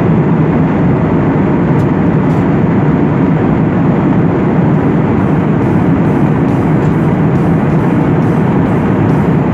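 Airliner cabin noise in flight: a loud, steady, deep rush of engine and airflow noise that stays even throughout.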